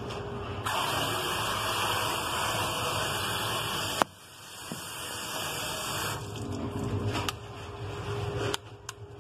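Hose spray nozzle spraying water, flushing the cold standing water out of a long hose so that hot water comes through. The spray cuts off sharply about four seconds in, then runs again more softly.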